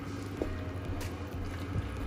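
A wooden spatula stirs chicken and potato chunks through simmering soy-vinegar sauce in a non-stick pan, with a couple of light knocks against the pan. A steady low hum runs underneath.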